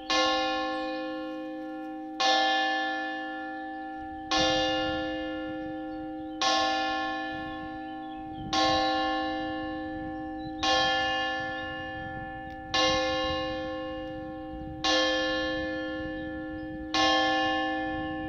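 A single church bell tolling at an even pace, one stroke about every two seconds, nine strokes in all. Each stroke rings out with the same bright, many-toned hum and fades before the next.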